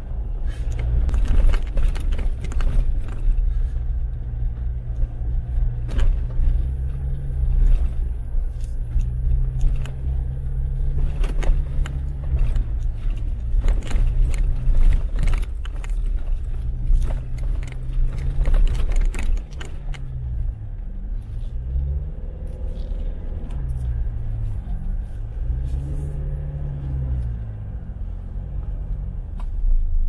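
Jeep Wrangler engine running as the vehicle creeps over a rough, icy track, with frequent knocks and rattles from tyres, suspension and cabin. In the last third the engine revs rise and fall several times.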